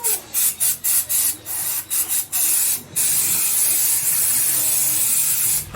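Aerosol spray can hissing in a run of short bursts, then one longer continuous spray of about two and a half seconds.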